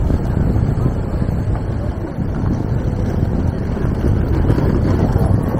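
Steady low rumble of wind buffeting a small camera's microphone while riding a bicycle.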